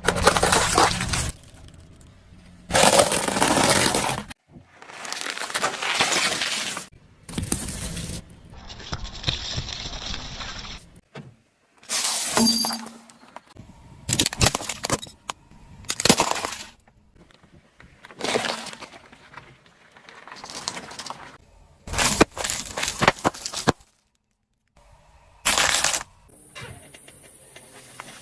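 A rapid series of separate crunching, cracking and breaking sounds, about a dozen short bursts cut one after another, as objects are crushed under a car's tyres.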